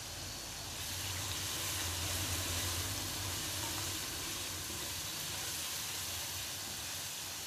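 Onion, tomato and green-chilli masala sizzling in oil in a nonstick wok as freshly added ground spices fry, stirred through with a spatula. A low steady hum sits underneath.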